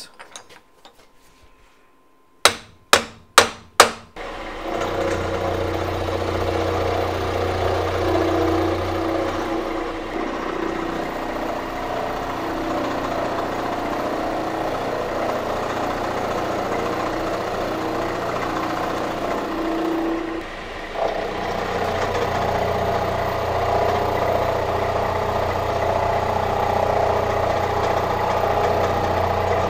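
Four sharp knocks, then a milling machine running as its end mill cuts into a cast aluminum part, a steady motor hum with a ragged cutting noise, easing off briefly about two-thirds of the way through.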